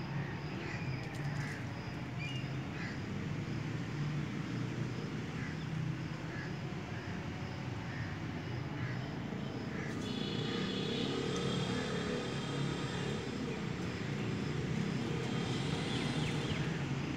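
Steady low hum of distant engines, with faint short chirps about once a second. About ten seconds in, a higher, steady engine whine joins and the sound grows slightly louder.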